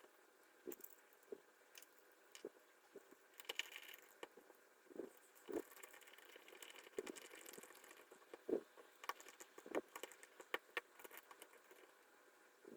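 Faint, irregular clicks, taps and light scrapes of small 3D-printed plastic parts, screws and micro switches being handled during assembly of a rotary switch. The sharpest clicks come in the second half.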